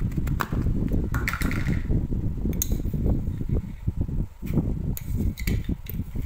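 A metal spoon clicking and scraping in a glass jar as white granules are scooped out and tipped into a plastic bowl, with sharp clicks scattered through. A steady low rumble runs underneath.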